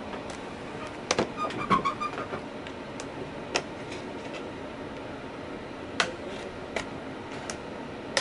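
Irregular sharp plastic clicks and snaps as the ThinkPad X1 Carbon's front LCD bezel is pried loose along its top edge, its plastic clips letting go one after another.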